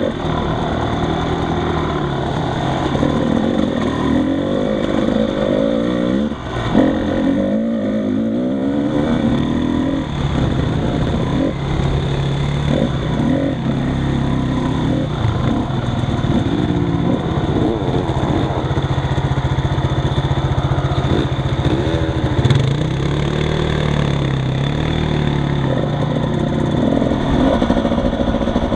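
ATV engine heard from on board while riding a muddy trail, revving up and down with the throttle.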